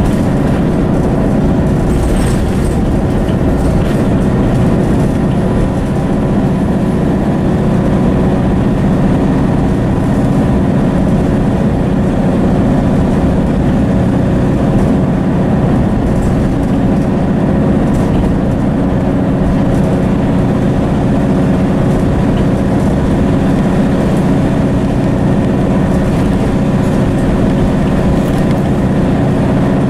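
Interior sound of a Mercedes-Benz O530 Citaro bus on the move: its Daimler OM906hLA diesel engine and ZF automatic gearbox run steadily with a steady hum, over road noise and a few faint rattles.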